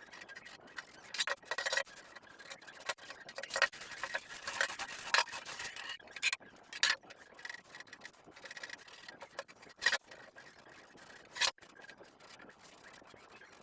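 Dishes being washed by hand: irregular rubbing and scraping with scattered light clicks and knocks of kitchenware, with two sharper knocks near the end.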